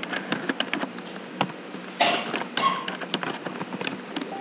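Computer keyboard keys clicking in quick, uneven strokes as code is typed, with a short cough-like burst about two seconds in.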